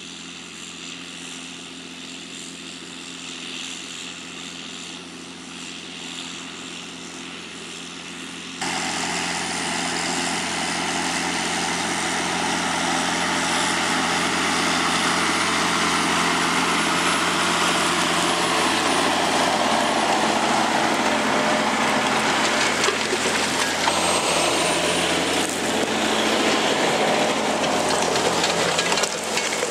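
A vehicle engine running steadily, then, about eight and a half seconds in, a sudden change to a much louder engine with a strong rushing noise over it that carries on to the end.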